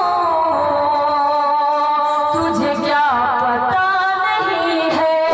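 A woman singing a ghazal in tarannum into a stage microphone, holding long notes and sliding between pitches.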